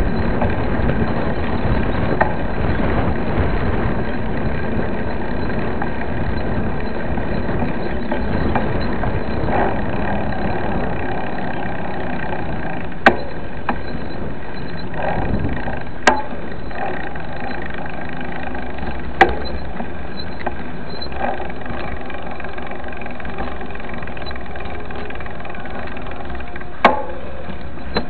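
Riding noise from a mountain bike on a paved road: a steady rush of wind on the mounted camera's microphone and tyre noise, with a heavier low rumble in the first half. A few sharp knocks or rattles from the bike jolting over the surface.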